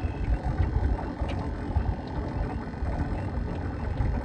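Low, irregular rumble of wind buffeting the microphone, with no engine running.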